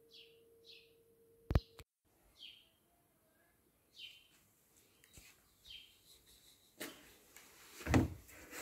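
Small birds chirping, short downward-sweeping chirps about once a second, over a faint steady tone that stops about two seconds in. There is a sharp click at about one and a half seconds and a louder rustling thump near the end.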